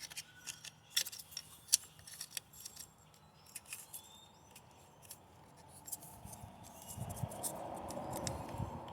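Engine wiring harness being handled and tucked into the engine bay: scattered light clicks and ticks of plastic loom and connectors, then a steadier rubbing, rustling sound from about six seconds in.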